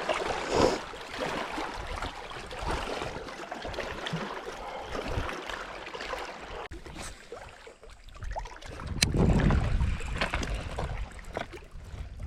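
Wind and water noise on a boat on the lake: water sloshing against the hull, with wind buffeting the microphone in a stronger gust about nine seconds in.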